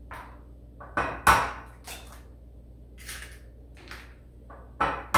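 Eggs being cracked on the rim of a bowl: a few sharp taps and cracks of shell, the loudest a little over a second in and another pair near the end.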